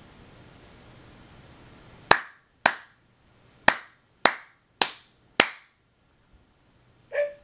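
Six sharp hand claps, unevenly spaced over about three seconds. Near the end comes one short electronic bark from the i-Cybie robot dog.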